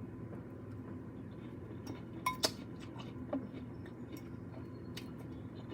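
A few light clinks of tableware, a plate and utensils knocking together, the sharpest two close together about two and a half seconds in, over a low steady hum.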